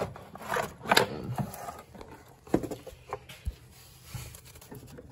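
Scattered short plastic clicks and knocks from hands working a pinch-type hose clamp and the stock air intake box loose in the engine bay, the sharpest about a second in.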